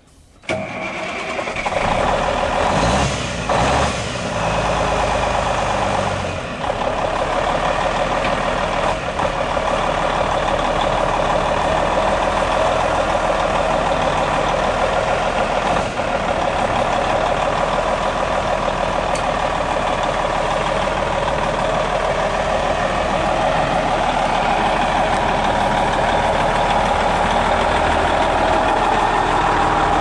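Cummins N14 inline-six diesel engine of a Kenworth T600 semi truck idling steadily.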